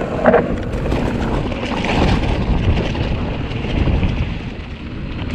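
Mountain bike rolling fast downhill: wind buffeting the microphone, and the tyres rumbling over rock and crunching through dry leaves, with many small clicks and rattles from the bike.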